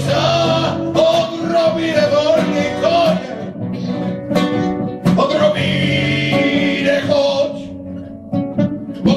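Two acoustic guitars strumming and picking a slow ballad accompaniment while a man sings long held notes. The music eases off a little near the end.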